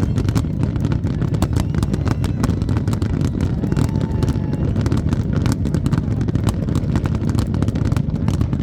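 Fireworks display: rapid crackling and popping shells over a steady low rumble of explosions.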